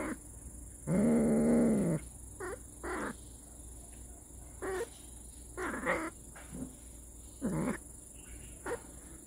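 Domestic cats yowling: one long low yowl about a second in, then a run of shorter meowing calls every second or so.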